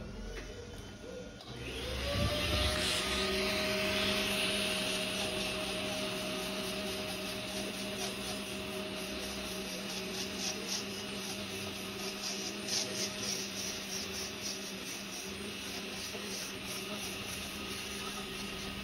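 Podiatry electric nail drill spinning up about a second and a half in, then running steadily with a hum and hiss as its tip works the surface of a thickened big toenail.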